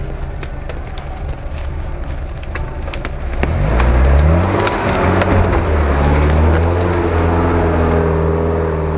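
UAZ-469 off-road vehicle's engine running under load as it pushes through brush, with branches snapping and cracking against the body. About three and a half seconds in the engine revs up and stays loud and steady.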